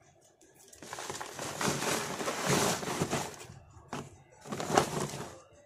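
Dry soil poured from a plastic tray into a plastic grow bag: a sliding, rustling hiss that builds about a second in and eases off after about three seconds, then a second, shorter pour near the end.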